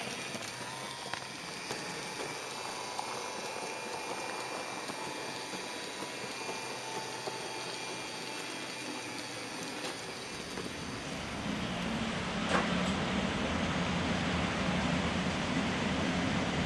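HO-scale model trains running on track. A steady hiss with a faint whine gives way, about ten seconds in, to a louder low rumble of model trains rolling over the rails, with a single click shortly after.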